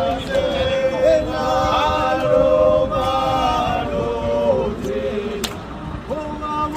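A group of voices singing a chant together, a cappella, with long held and sliding notes.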